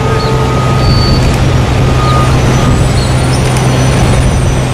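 Heavy diesel engines of a truck and modular transporter moving an oversize load at walking pace: a loud, steady deep drone. Short high tones come and go over it.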